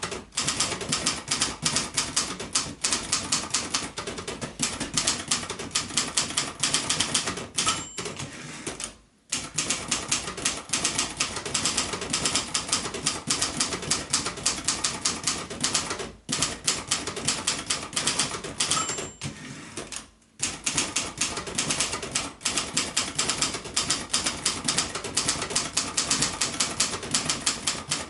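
Royal Mercury ultraportable typewriter, built by Silver-Seiko, typing in fast clattery runs of keystrokes, several strokes a second. The runs break off for a moment about nine, sixteen and twenty seconds in, and a short bell ring sounds twice, near eight and nineteen seconds in.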